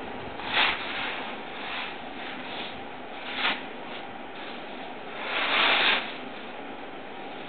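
Trough-type compost turner running as its rotating tine shaft churns compost in the fermentation trough: a steady, rough noise with no clear pitch. Brief louder hissing surges come about half a second in and about three and a half seconds in, and a longer one lasts close to a second near six seconds.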